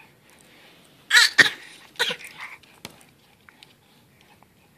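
A nearly four-month-old baby making brief vocal sounds: a short high squeaky coo about a second in, then softer grunts around two seconds, with a couple of sharp little clicks.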